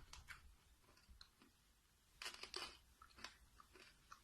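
Near silence, with a few faint crunching clicks about two seconds in and one more a second later, like sour hard candy being chewed.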